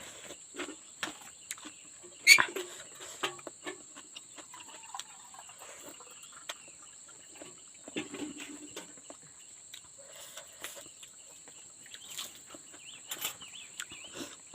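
Steady high-pitched insect drone, with scattered rustles and short clicks over it; the loudest is a sharp snap about two seconds in.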